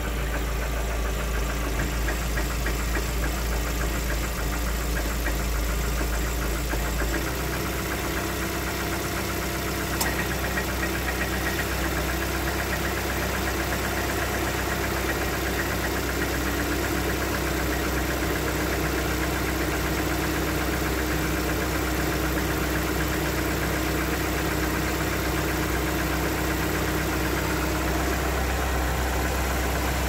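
Lada Xray's 1.6-litre VAZ-21129 sixteen-valve four-cylinder engine idling with a steady, even knock, heard close up under the open bonnet; the owner does not know its cause or how dangerous it is.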